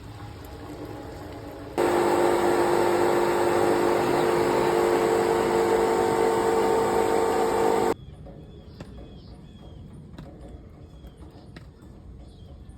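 Air-conditioner compressor humming loudly for about six seconds, starting and cutting off abruptly: a bad compressor.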